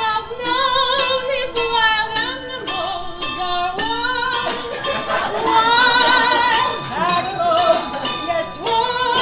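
Several women singing together in held notes with a strong vibrato, over piano accompaniment.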